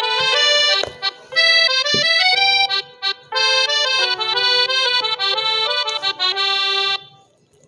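Huawei Y9 2019 ringtone: a short instrumental melody played in a few phrases with brief breaks, stopping shortly before the end.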